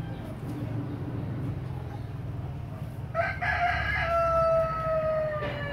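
A rooster crowing once, about three seconds in: one long call that falls slowly in pitch, over a steady low hum.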